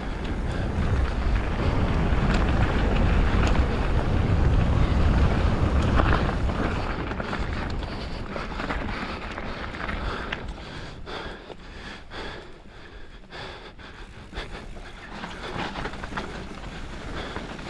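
Wind buffeting a helmet-mounted action camera's microphone, with the rumble of mountain-bike tyres on a dirt trail during a fast descent. About seven seconds in the wind rumble eases, and sharp knocks and rattles from the bike over rough ground come through.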